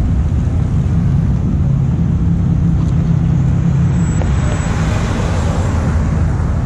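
Car engines rumbling in a steady low drone as cars drive through the lot, with a rushing noise that swells about four seconds in and then fades.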